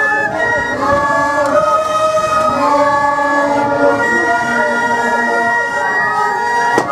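A troupe of Andean wooden duct flutes playing a melody together in loud held notes, the players sounding in parallel, with a reedy, siren-like edge. A single sharp crack sounds near the end.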